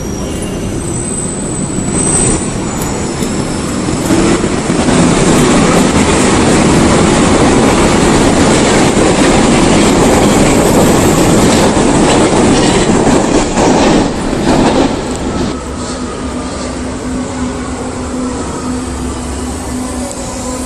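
Berlin U-Bahn train running on the rails with a high wheel squeal and clickety-clack over the rail joints. It grows loud a few seconds in and stays loud, with a quick run of clacks near the end of the loud stretch. It then drops to a quieter steady hum.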